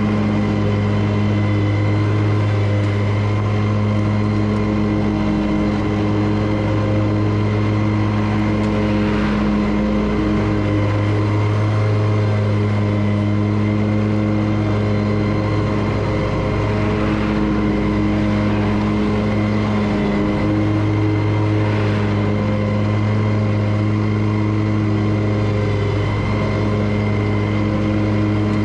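Commercial lawn mower engine running steadily under load while mowing, a loud low hum with a few brief dips.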